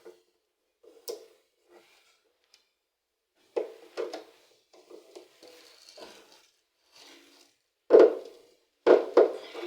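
Handling noise from fitting a replacement thermistor into a washing machine: irregular knocks, clicks and rubbing of parts, with the loudest knocks near the end.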